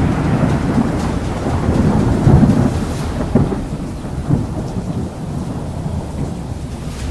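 Thunder rumbling with rain. The low rolling rumble is strongest in the first few seconds, then gradually fades.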